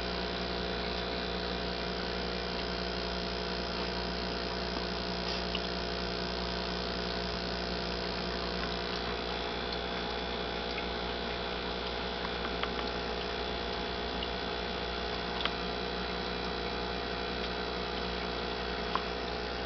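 Steady electric hum of running aquarium equipment, several steady tones over a low drone, with a few faint ticks.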